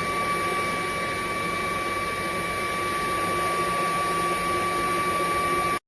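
Proscenic P11 Lite cordless stick vacuum running steadily: a high, even motor whine over rushing airflow, cutting off suddenly near the end.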